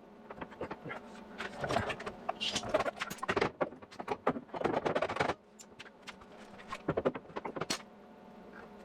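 Sheet-metal panel being worked and fitted by hand: irregular light metallic clicks, taps and scraping, busiest for a few seconds in the middle, then scattered clicks.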